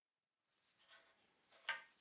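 Near silence with faint handling rustle, then one light tap near the end from a claw hammer setting a small nail into the wooden frame.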